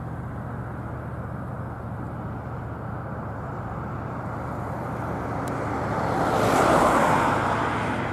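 A motor vehicle passing by, growing louder to a peak about six to seven seconds in and then fading, over a steady low hum.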